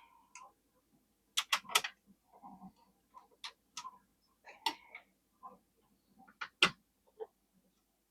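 1887 Hall index typewriter being typed on: a series of irregular sharp clacks and clicks from the mechanism as characters are printed, the loudest in a quick cluster of three about a second and a half in and a single hard clack near the end.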